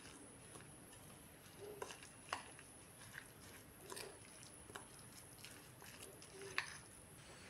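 Metal spoon stirring a moist bamboo shoot and spice pickle mix in a ceramic bowl: faint mixing sounds with a few light clicks of the spoon against the bowl, the sharpest about six and a half seconds in.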